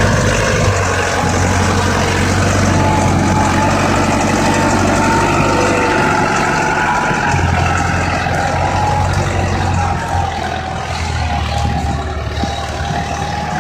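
SAME Explorer II 70 tractor's diesel engine running steadily, with a high whine over the engine note. The engine drops slightly in level about ten seconds in.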